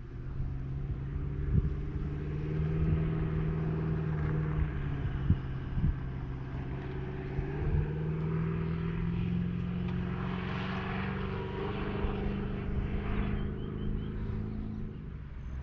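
Four-wheel-drive truck's engine pulling away up a gravel track, its note rising slowly and steadily, with a few sharp knocks in the first six seconds.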